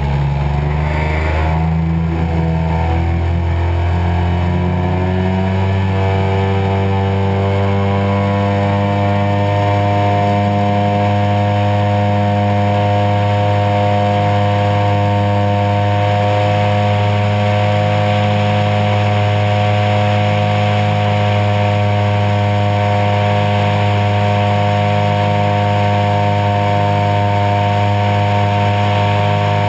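DA-100 twin-cylinder two-stroke petrol engine and propeller of a 40% scale Super Cub RC float plane, heard close up from on board. The engine climbs in pitch over the first five seconds or so as it goes to full throttle for the takeoff run off the water, then runs steady at high revs through the climb-out and bank.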